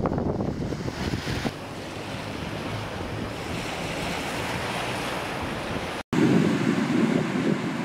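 Beach ambience: surf and wind buffeting the microphone. After a brief dropout about six seconds in, the wind rumble on the microphone comes back louder.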